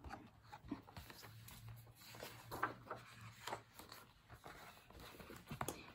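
Paper page of a hardcover picture book being turned by hand: faint, irregular rustling and sliding strokes of paper against paper.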